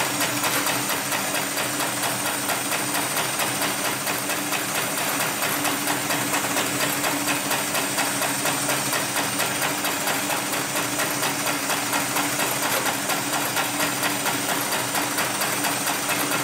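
Hightex #733BP automated spiral sewing machine running steadily, its needle punching through a thick stack of stiff sisal buffing-wheel layers in a rapid, even rhythm of strokes.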